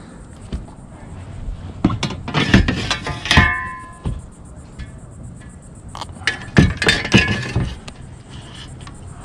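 Knocks and clinks of a metal measuring ruler being handled and set down across a plastic kayak, in two clusters about two seconds and six seconds in, with a brief metallic ring about three and a half seconds in.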